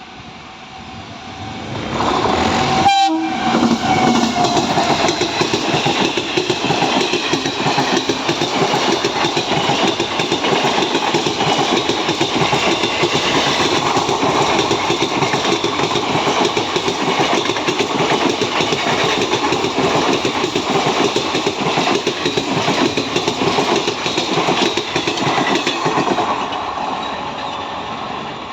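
WAG9 electric locomotive and its ICF coaches passing close at speed, the wheels clattering rapidly over the rail joints. The noise builds sharply about two seconds in, holds as the coaches go by, and eases off near the end.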